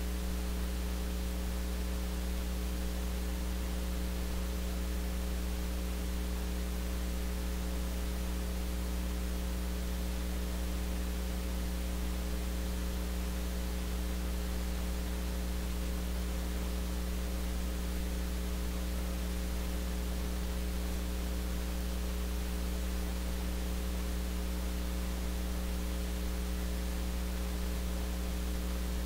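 Steady electrical mains hum with a few fainter higher tones above it, over an even hiss, unchanging throughout; no music or voice comes through.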